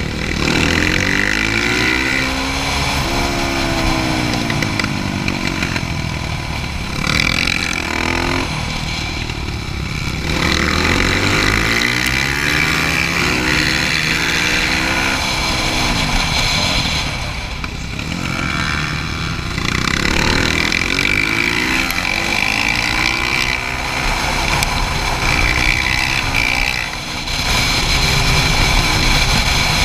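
KTM 450 SMR's single-cylinder four-stroke engine, heard onboard, its revs repeatedly climbing and dropping as the bike is accelerated out of corners and backed off into the next.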